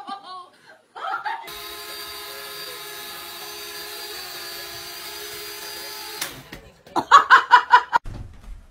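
Small toy quadcopter drone hovering: a steady high whine from its propeller motors that starts about a second and a half in and cuts off suddenly some five seconds later. Near the end comes a loud, rapid burst of short pitched sounds.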